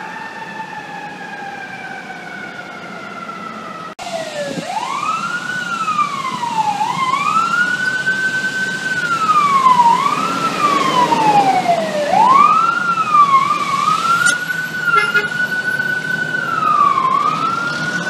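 FDNY fire engine siren wailing loudly, sweeping up and holding its high note, then falling, over and over as the engine comes up through traffic. Before a cut about four seconds in, a fainter, more distant siren tone slides slowly downward.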